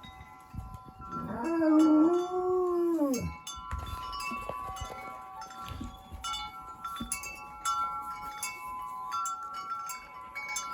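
A dog howls once for about two seconds, starting about a second in, its pitch holding and then dropping away at the end. Wind chimes ring steadily behind it.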